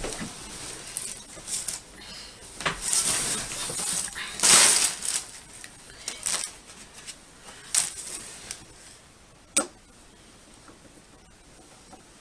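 Handling noises from working screws into the plastic back of a flat-screen TV with a Phillips screwdriver: irregular rustling and scraping, loudest about halfway through, with a few sharp clicks and small metallic clinks.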